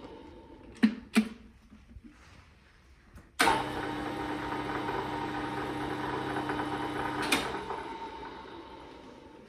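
Hembrug DR1-LS lathe's motor and spindle being started and stopped. A fading run-down and two sharp clicks come first. The lathe then starts suddenly with a steady hum, runs for about four seconds, is switched off with a click and spins down gradually.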